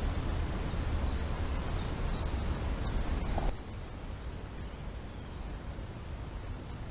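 Low wind rumble on the camera microphone, with a small bird giving a run of short, high, falling chirps about twice a second; the wind noise drops suddenly about three and a half seconds in, and a few fainter chirps follow.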